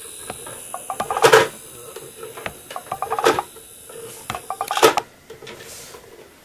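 Fisher-Price Press 'n Go pink monster truck toy ratcheting as it is pressed down and pushed: three quick runs of plastic clicking about a second and a half apart.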